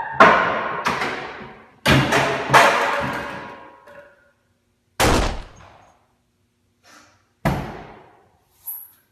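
A series of loud bangs and thumps from behind a closed metal closet door, about six in all. The first four come close together and the last two are more spaced out, with a couple of faint knocks between them. Each bang rings out for a second or more in the tiled room.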